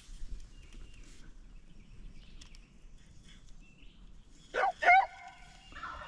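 A turkey gobble about four and a half seconds in: a quick, loud, wavering rattle that runs into a short held note.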